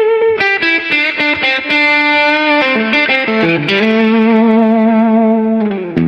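Blues lead guitar, electric and lightly overdriven, playing a slow single-note melody: quick picked notes, then long held notes with a wavering vibrato.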